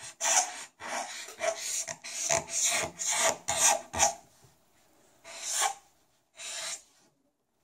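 Felt-tip marker scratching across paper in quick drawing strokes, about three a second for roughly four seconds, then two separate longer strokes.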